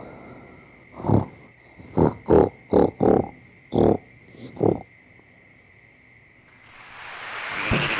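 A woman snoring in short, loud snorts, several in quick succession, then a pause, then a rising hiss that builds near the end.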